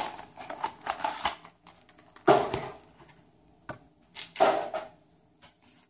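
Crinkling and tearing of Yu-Gi-Oh! card packaging as it is pulled open and handled. The sound comes in several crackly bursts, with the loudest near the start, about two seconds in, and about four seconds in.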